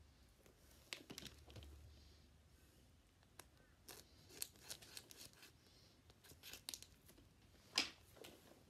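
Faint, scattered rustling and sharp clicks of packaging and Blu-ray cases being handled, with one louder rustle near the end.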